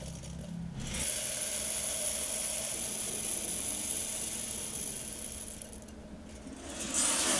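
Roasted coffee beans pouring into a ceramic bowl, a dense rattling hiss of many small clicks. It eases off about five seconds in, and a short, louder rattle comes near the end.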